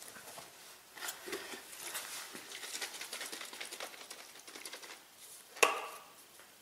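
A spray product hissing onto a car's alloy wheel and tyre for a few seconds, crackly and uneven. Then a single sharp knock, the loudest sound, shortly before the end.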